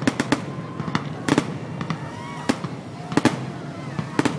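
Aerial fireworks in a grand finale, shells bursting in a rapid, irregular series of sharp bangs, about a dozen in four seconds, with thin rising and falling whistling tones between them.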